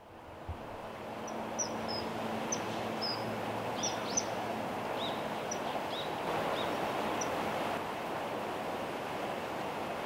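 Common kingfishers giving a scattered series of short, high, shrill calls, typical of a pair chasing each other, over the steady rush of a small stream. There is a soft low thump just after the start.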